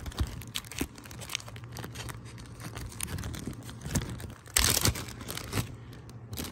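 Clear plastic zip-top bag crinkling and rustling as it is opened by hand, with many small crackles and one louder burst of rustling a little past halfway.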